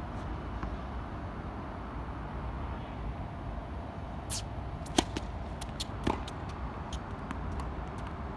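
Tennis serve on a hard court: a brief swish, then the sharp crack of racket on ball about five seconds in, the loudest sound here. A second, duller impact follows about a second later, then a few faint ticks of the ball, over a steady low rumble of background traffic.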